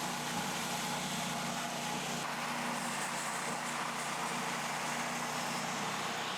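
Mech Maxx portable band sawmill running steadily: a constant engine tone under a noisy whir, with a slight change in the low end about two seconds in.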